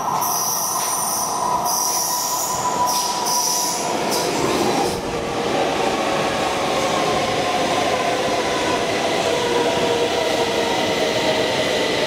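Metro train pulling into the underground station, its wheels squealing high for the first five seconds or so, then a steady running rush as it moves along the platform.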